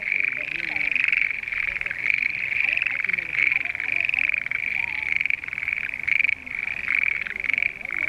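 Chorus of many frogs calling from a flooded rice paddy: dense, overlapping rapid pulsed croaks that never let up.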